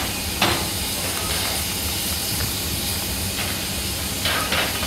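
Steam tank locomotive hissing steadily as steam escapes, with a low drone under it and a few short, sharper sounds over the hiss about half a second in and again near the end.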